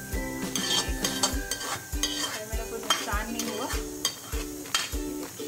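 Metal spatula scraping and tapping against a metal kadhai, scraping thick kofta gravy out of the pan, over background music with a steady beat.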